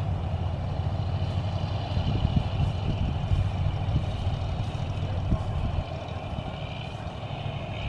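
Steady low rumble of a vehicle running, with a faint steady high whine above it.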